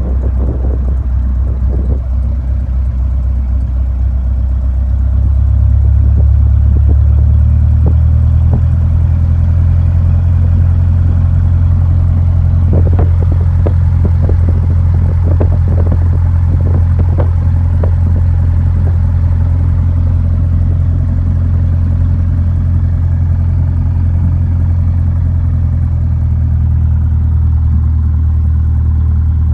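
Light aircraft's piston engine running at taxi power, heard from inside the cabin as a loud, steady low drone; its note rises a little several seconds in and then holds. A run of light clicks and rattles comes about midway.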